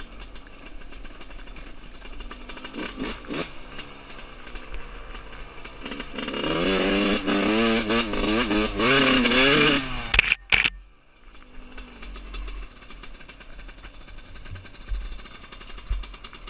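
1999 Yamaha YZ125 two-stroke motocross bike being ridden on a dirt trail while it is still being run in. The engine runs low for the first few seconds, then revs up and down hard several times in a row, cuts off abruptly about ten seconds in, and comes back quieter under wind rumble on the mic.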